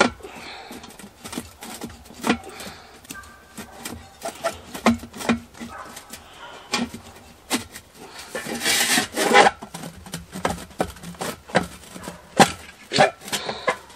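Steel stovepipe damper rod being forced and twisted back and forth through a tight hole in the sheet-metal pipe wall: repeated metal-on-metal scraping and clicking, with a longer rasping scrape about nine seconds in.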